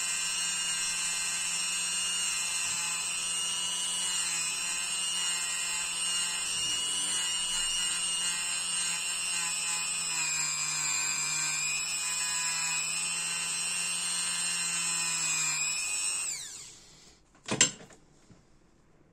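Small handheld rotary tool spinning a small abrasive disc at high speed, a steady high-pitched whine, used to clean a tiny brass lighter part held against it. About 16 seconds in it is switched off and winds down with a falling whine, followed by one sharp click.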